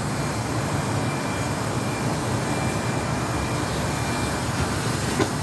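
A steady low rumble of background noise, with one short click about five seconds in.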